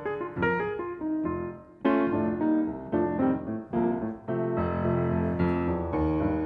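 Jazz piano playing an instrumental break in a slow blues, with struck notes and chords. The playing thins out about a second and a half in, then comes back with a loud chord.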